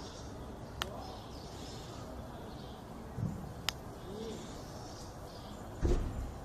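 Quiet outdoor background noise with two brief sharp clicks and a louder low sound near the end. The ultrasonic dog repeller's 25 kHz tone is beyond human hearing and is not heard.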